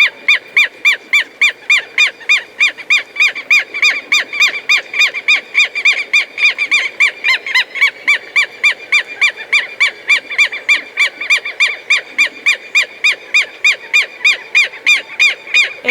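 Southern lapwing (quero-quero) calling: a long, even series of short, strident, arched notes at about four a second.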